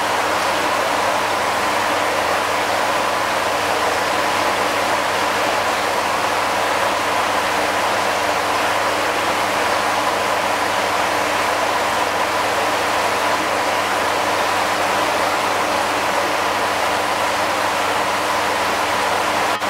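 Steady rushing of water circulating in a koi pond, unchanging throughout, with a faint steady hum beneath it.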